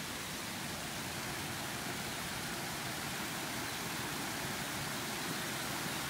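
Creek water spilling over low rock ledges in small falls: a steady rushing that grows slightly louder.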